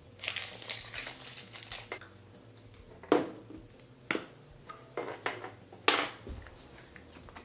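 Foil wrapper of a Kinder Surprise egg crinkling as it is torn off, then a few sharp cracks and clicks as the chocolate shell is broken and the plastic toy capsule is handled and opened.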